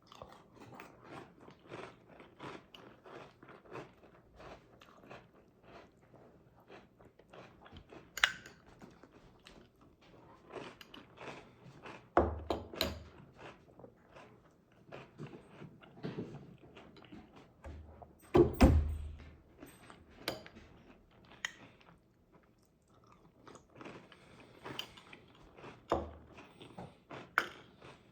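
A person chewing crunchy cereal, a steady run of crackling crunches, with a few louder knocks about a third and two thirds of the way through.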